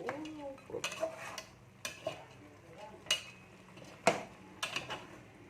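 Utensils clinking and scraping against kitchenware: a series of sharp clinks at irregular intervals, the loudest about four seconds in.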